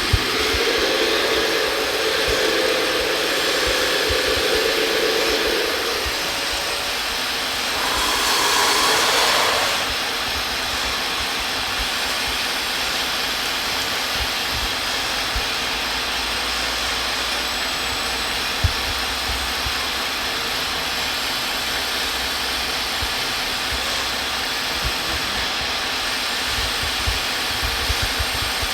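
Radio-controlled model construction machines running, their electric drive motors and hydraulic pumps giving a steady whir that swells louder for about two seconds some eight seconds in.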